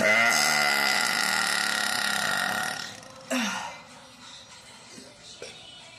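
A woman belching after drinking Coca-Cola: one long, loud burp of nearly three seconds, then a short burp falling in pitch about half a second later.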